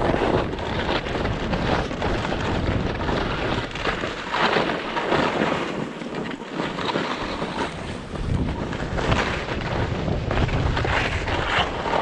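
Skis scraping and carving over hard-packed snow, swelling with each turn every second or two, mixed with wind rushing over the microphone.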